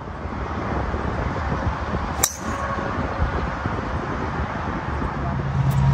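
A single sharp crack of a driver striking a golf ball off the tee, about two seconds in, over steady wind noise. Near the end a low steady hum comes in.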